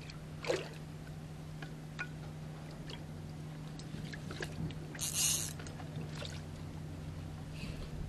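A steady low motor hum, with scattered light clicks and a short hissing rush about five seconds in.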